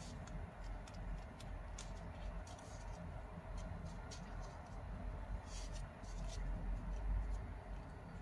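Origami paper crinkling and crackling as fingers crease and shape a small flap: scattered soft crackles at irregular intervals, busiest a little past the middle, over a steady low hum.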